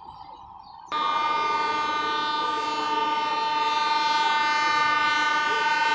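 Indian Railways EMU local train sounding its horn: one long, steady blast that cuts in abruptly about a second in and holds without a break.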